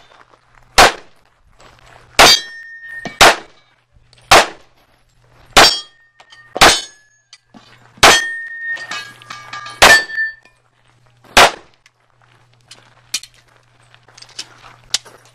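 Semi-automatic pistol firing nine single shots spaced about a second or more apart, a few of them followed by a brief ringing tone. The shooting stops about 11 seconds in, and only faint clicks follow.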